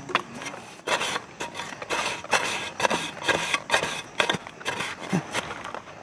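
A hand digging tool chopping and scraping into damp soil in quick repeated strokes, about two to three a second.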